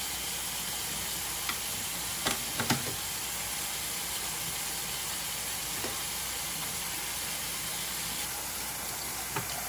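Kitchen faucet running a steady stream into a stainless steel sink, with a few light knocks from filleting a fish on a board over the sink.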